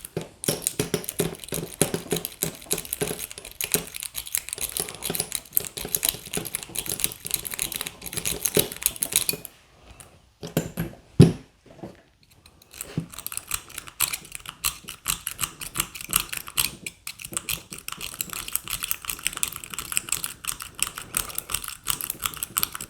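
Lock pick raking across the pin tumblers of a Master padlock: fast, dense metallic clicking. It stops for a couple of seconds, with one loud knock about eleven seconds in, then the raking starts again.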